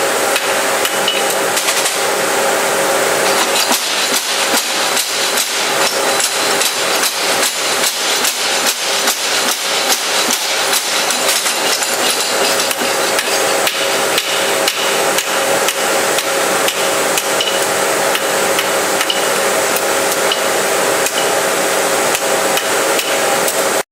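Hand hammer striking a red-hot carbon-steel carving-tool blade on an anvil to straighten it: a long, even run of sharp metal-on-metal blows, a few each second, over a steady hum.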